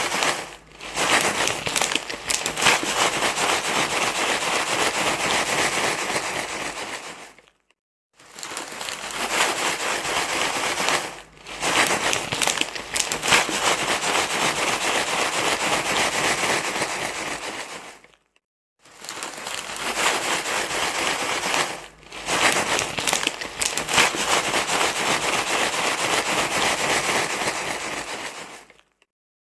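Continuous crinkling, rustling noise like something being crumpled, played as a loop that cuts out to silence briefly about every ten seconds, three times, with shorter dips in between.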